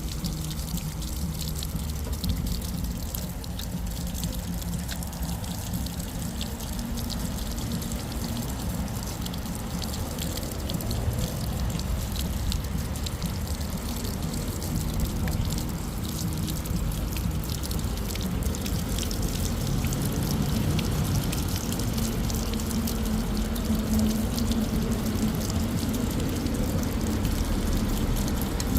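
Rainwater pouring steadily out of a drainpipe downspout: a continuous rushing, splashing gush with fine scattered drips, growing a little louder about two-thirds of the way in.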